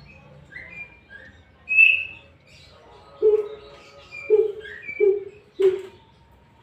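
Coucal giving four deep hoots in a row, roughly half a second to a second apart, in the second half. Short, higher chirps from small birds come before and between them.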